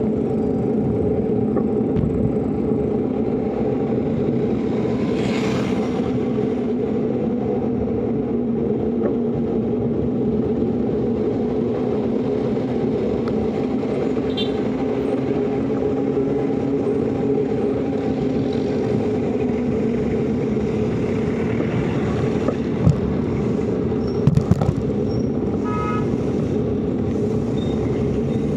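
Motorcycle engine running at a steady cruising speed, heard from on the bike along with road and wind noise. A few sharp clicks and a short beeping tone come near the end.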